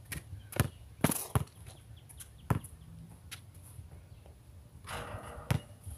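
Basketball bouncing on a concrete court: a handful of sharp, unevenly spaced thumps, with a brief rasping noise just before the last and loudest one, about five and a half seconds in.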